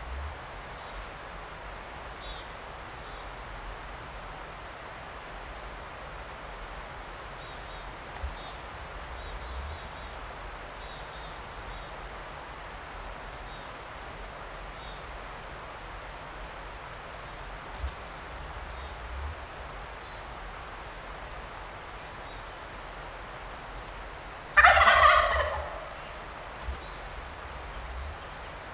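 Wild turkey gobbler gobbling once near the end: a single loud, rattling call about a second long. Faint high chirps of small songbirds run through the background.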